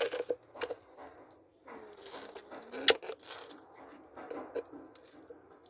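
Handling noise from small objects being worked by hand: scattered light knocks and scraping, with one sharp click about three seconds in.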